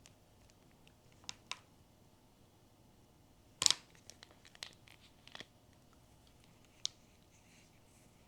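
Blind-box packaging and a small toy handled by hand: scattered light clicks and taps, with the loudest cluster about three and a half seconds in, followed by a quick run of smaller clicks.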